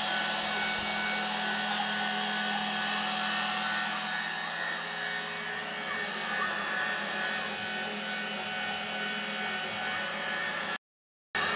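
CNC router spindle motor running steadily while milling a finishing pass in polystyrene foam: a constant whine over a hiss. The sound cuts out abruptly near the end.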